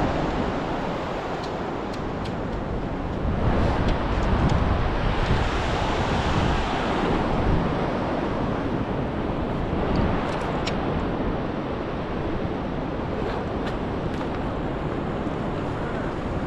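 Ocean surf breaking and washing up the beach, with wind buffeting the microphone. A wave surges in about three and a half seconds in and washes out over the next few seconds.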